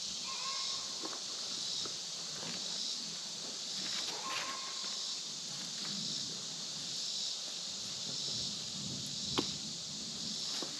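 A chorus of insects buzzing high-pitched, swelling in a steady pulse about once a second. A sharp click sounds near the end.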